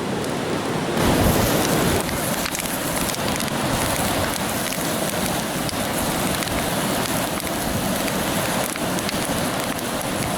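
Linguiça sausages sizzling in their own grease in a mess-kit frying pan over a campfire: a steady hiss with faint pops, swelling louder for about a second near the start.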